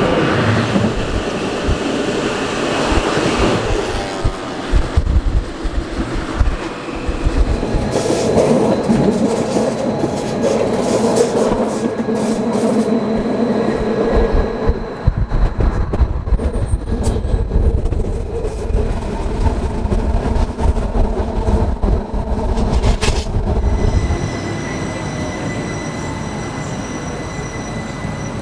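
Rhaetian Railway electric train running on metre-gauge track, heard from inside the carriage: a steady rumble of wheels on rail with squealing through curves. Near the end the running noise drops and a thin steady whine remains as the train slows into a station.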